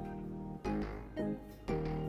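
Instrumental background music: held notes, with new notes struck three times.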